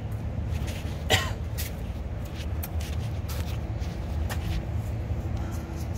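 A person coughs once, sharply, about a second in, over a steady low rumble in the background. Footsteps on pavement tick faintly as he walks around the vehicle.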